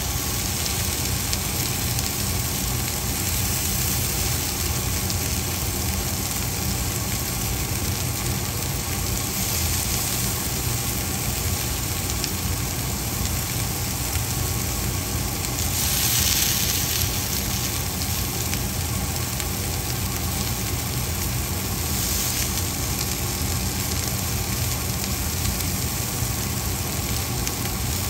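Food frying in a pan, a steady sizzle with a constant low hum underneath. The sizzle swells briefly about sixteen seconds in.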